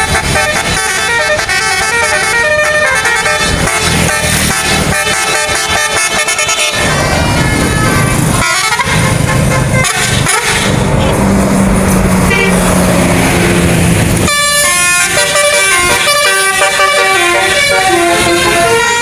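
Telolet basuri multi-tone bus air horn playing a melody in quick, stepped notes. For several seconds in the middle the tune breaks off and a lower, rougher sound with steady deep tones takes over, then the horn melody starts again.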